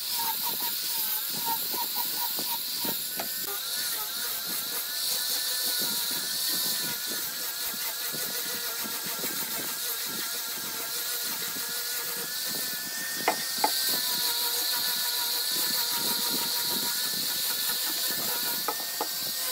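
Small electric angle grinder fitted with a sanding disc, running steadily with a high whine that wavers slightly in pitch as it is pressed onto a wooden board, over the hiss of the abrasive on the wood. Two sharp clicks come a little past the middle.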